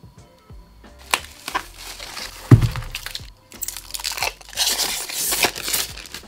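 Packaging being handled and torn open, with irregular crinkling and tearing and a dull thump about two and a half seconds in.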